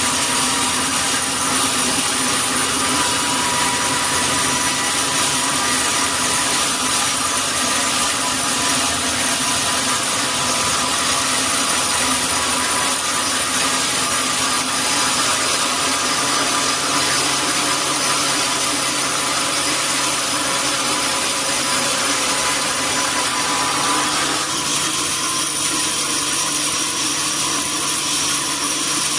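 Sawmill saw cutting through a large durian log, a steady loud whine with several high ringing tones. About 24 seconds in, the sound thins as the middle tones drop away.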